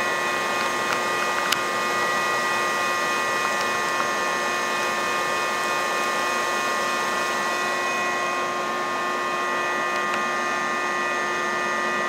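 Shop-Vac wet/dry vacuum running steadily, a constant whine of several fixed tones over rushing air, its hose drawing honey bees out of a colony in the house wall.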